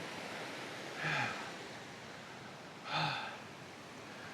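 A man's breathy vocal exhalations: two short sounds, each falling in pitch, about two seconds apart, over a steady background hiss.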